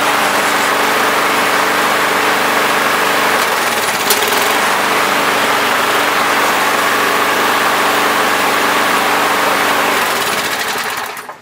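Small walk-behind lawn mower engine running steadily. About four seconds in it briefly sags with a sharp click, and near the end it is shut off and winds down.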